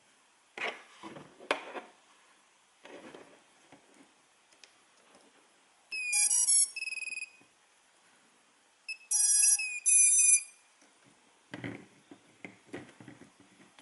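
Handling noises, then two short runs of electronic beeps about three seconds apart, each a few quick stepped tones ending on a held note: the startup tune a brushless quadcopter's ESCs play through the motors when the battery is connected.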